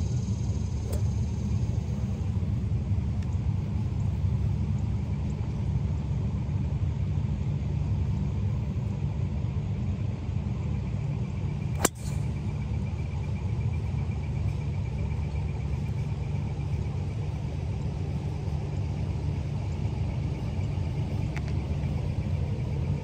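A driver striking a golf ball off the tee: one sharp crack about halfway through, over a steady low rumble.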